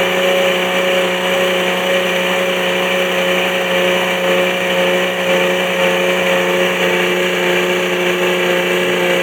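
Atlas Copco pneumatic drill running at a steady speed: a constant whine from the air motor over a hiss of air.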